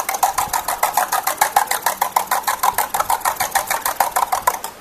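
Two eggs being beaten briskly in a bowl to blend them, the utensil clicking against the bowl in a fast, even rhythm of about ten strokes a second. The beating stops near the end.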